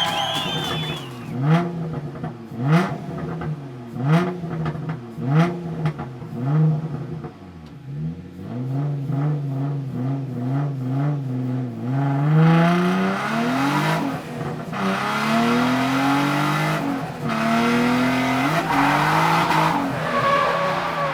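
Twin-turbo Nissan 350Z engine revved in a run of short blips, about one every second and a half. From about halfway on it revs up and down under longer pulls, with tyre noise from drifting layered over it.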